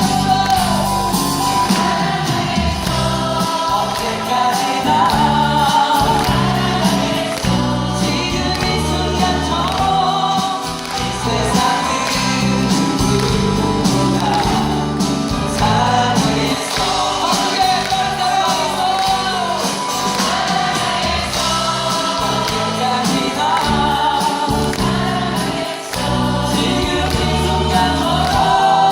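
Live ensemble singing from a musical's cast, several voices together over a band with a steady bass beat.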